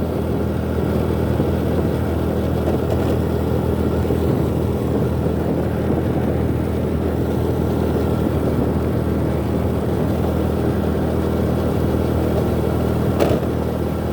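Motorcycle engine running at a steady speed with road noise, the pitch holding even throughout. A single short knock near the end.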